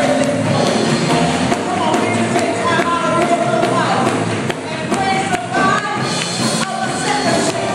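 Gospel choir and congregation singing over live church music, with hand claps and percussion keeping a steady beat.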